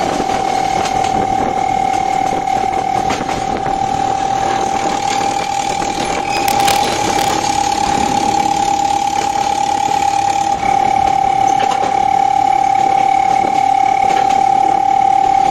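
Narrow-gauge train running, with a steady high-pitched whine held throughout and scattered clicks over the running noise.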